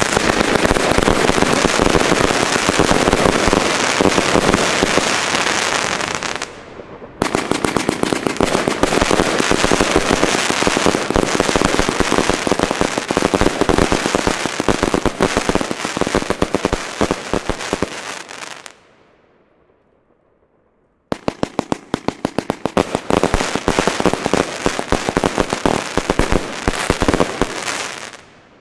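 Zena Snapte 144-shot firework cake firing its shots in very rapid succession: a dense, unbroken stream of launches and crackling bursts. It breaks off briefly about six seconds in, goes quiet for about two seconds past the midpoint, then resumes with rapid distinct shots until it stops near the end.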